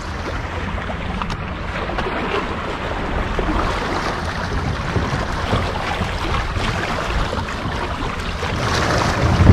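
Wind buffeting the microphone over a steady wash of water at the shoreline, swelling to a louder gust near the end.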